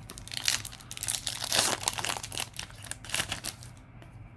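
Foil wrapper of a Yu-Gi-Oh! booster pack crinkling for about three seconds as it is handled and opened, loudest midway.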